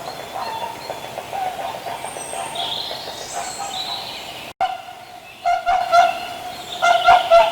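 Swans calling: a steady chorus of calls with smaller birds chirping over it, then, after a sudden cut about four and a half seconds in, a run of about six short, loud honking calls close by.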